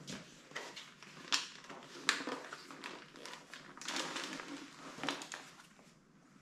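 Schuberth C5 modular motorcycle helmet being pulled on over the head with its chin bar raised: rustling and scraping of the shell and liner, with a few sharp clicks and knocks.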